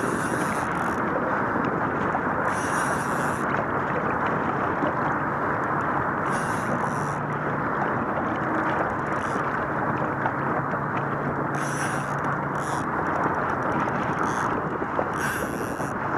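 Steady wind rush on the microphone and water washing against the side of a boat, with short hissy swishes every few seconds.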